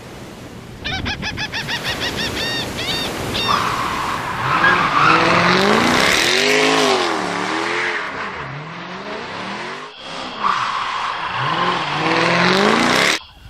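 Race-car sound effects: engines revving up and down with tyres squealing, starting with a quick run of high repeated tones and cutting off abruptly near the end.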